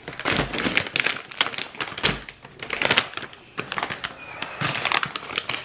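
Crunchy snack being chewed close to the microphone: dense, irregular crackling clicks.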